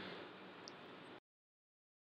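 Near silence: faint room hiss that cuts off to dead silence about a second in.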